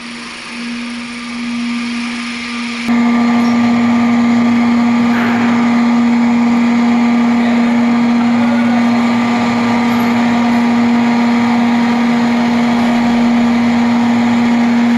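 Loud, constant machinery hum of a car ferry's vehicle deck: one steady low drone with overtones. About three seconds in it becomes much louder and fuller.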